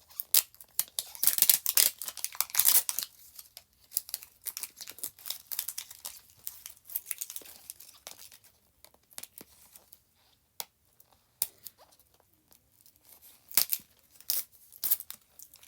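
Crinkly toy packaging being torn open and handled, with a dense stretch of crackling and tearing in the first few seconds, then scattered crackles and clicks and another flurry near the end.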